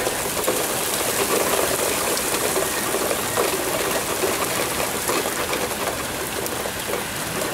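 Heavy rain falling steadily, a dense even hiss, with irregular nearer splashes of drops standing out through the middle.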